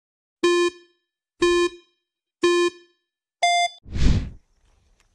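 Countdown beeps: three identical short beeps about a second apart, then a fourth an octave higher, signalling the start. A short whoosh follows right after.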